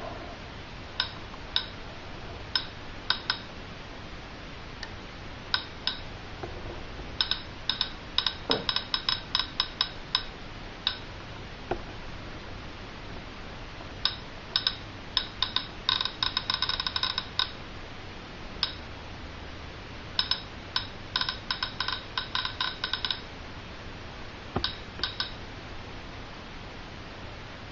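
DRSB-01 radiation survey meter clicking at random as it counts radiation from radium-painted aircraft instrument dials. The short, beep-like clicks come singly and in quick flurries, thickest in the middle and again later, with quieter gaps between.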